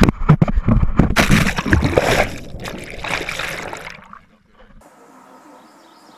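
Knocks and thumps on a handheld action camera, then a loud splash about a second in as the camera goes into the river. Water sloshes and churns around it for a few seconds, then the sound drops away to a faint outdoor background.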